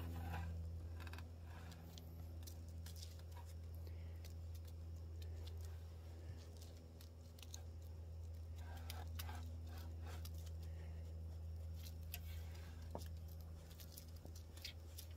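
Scattered scraping and clicking as a small horned animal rubs its head and horns against a pickup truck's metal front bumper to scratch itself, over a steady low hum.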